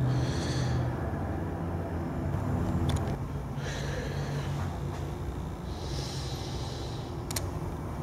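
Close breathing of the person holding the camera, a few breaths every two to three seconds over a steady low rumble, with two small clicks.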